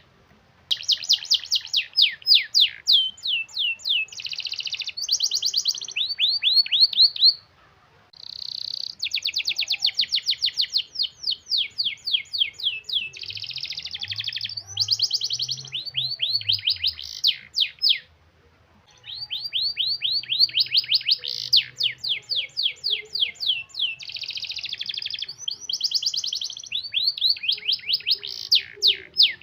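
Domestic canary singing long, tightly rolled song phrases: rapid trills of quickly repeated sweeping notes mixed with buzzy stretches. The song comes in three long phrases, with brief pauses between them.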